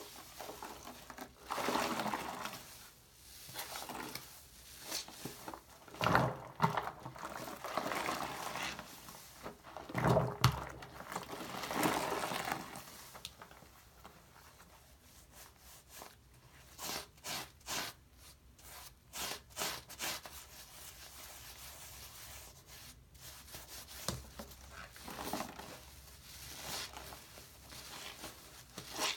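Wet foam sponge full of shaving cream lather squeezed and kneaded by hand, giving irregular squishing and squelching. A run of short, quick squishes comes about halfway through.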